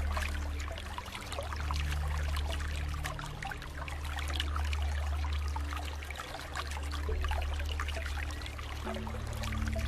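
Running water trickling and splashing steadily, a continuous patter of small droplets and gurgles over a low steady rumble.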